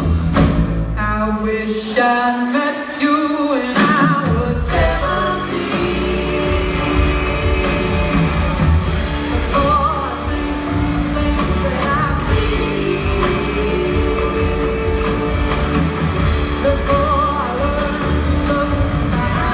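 Live band with a woman singing lead over electric guitar, keyboards, drum kit and upright bass. About two seconds in the bass end drops away under the voice, and the full band comes back about two seconds later.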